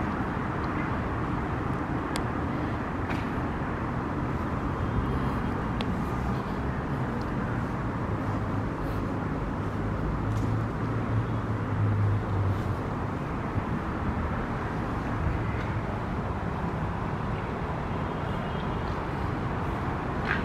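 Steady drone of city traffic, with a deeper low rumble swelling for a few seconds about halfway through.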